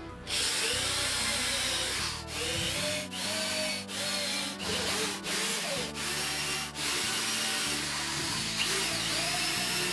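Cordless drill boring holes through a laminate board, running in a string of short bursts with brief pauses between holes, then steadily near the end. The motor's whine dips and recovers as the bit bites.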